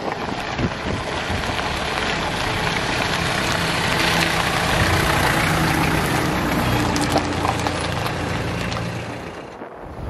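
A motor vehicle running: a steady rushing noise with a faint low engine hum, fading down shortly before the end.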